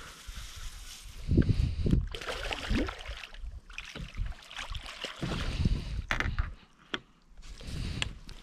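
Hooked carp splashing and thrashing at the water's surface as it is played into a landing net, with wind gusting on the microphone. A few sharp clicks come in the second half.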